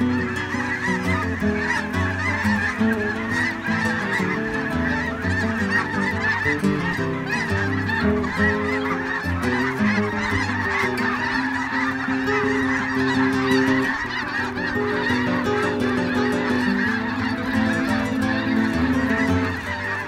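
A large flock of snow geese calling in a dense, continuous chorus of honks as they fly in and land on the water.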